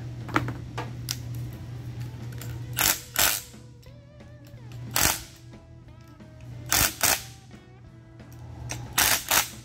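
Cordless impact driver running the four side-cover bolts down on a pressure-washer pump in short rattling bursts, mostly in pairs, every couple of seconds, over background guitar music.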